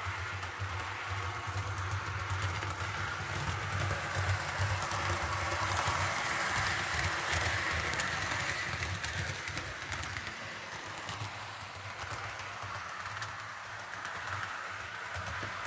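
Model electric locomotive pulling Roco Deutsche Bahn coaches around a layout. Steady rolling rumble of wheels on the track with fine clicking over rail joints and a low motor hum, a little louder for a few seconds as the train runs close by.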